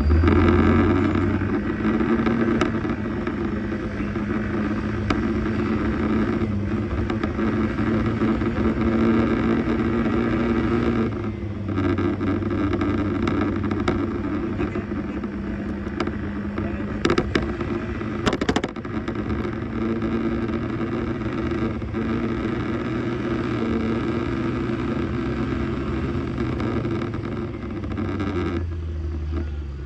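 Arora scooter's engine running steadily under way, with road and wind noise. Two sharp knocks come about a second and a half apart past the middle, and the engine eases off near the end.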